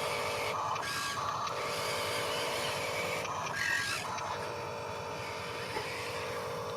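Small electric motors and gearboxes of hobby-grade RC construction machines whining steadily, stopping briefly and starting again a few times as the controls are worked.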